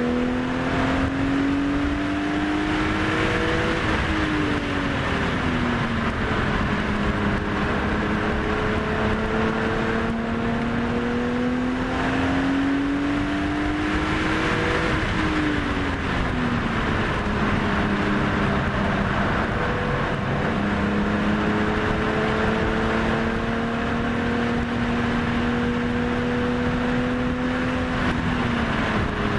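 2002 BMW E46 M3's S54 straight-six, fitted with Fabspeed headers, high-flow cats and a Dinan muffler, heard from inside the cabin on track. The engine note climbs slowly under power, then falls away about 4 s in, again about 15 s in, and near the end, over a steady bed of road and wind noise.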